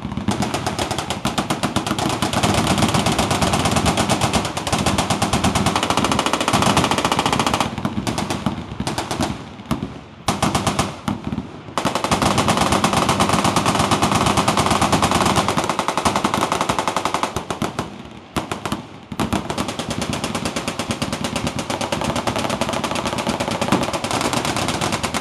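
Sustained automatic machine-gun fire, a dense continuous rattle of shots. It breaks up into short gaps about eight to twelve seconds in and again around eighteen seconds before resuming.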